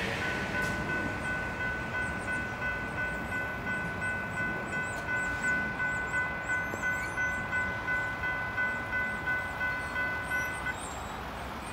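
Railroad crossing warning bell ringing steadily with a pulsing ding about twice a second while the gates rise after the train has passed. It cuts off about a second before the end. The noise of the departing train fades away at the start.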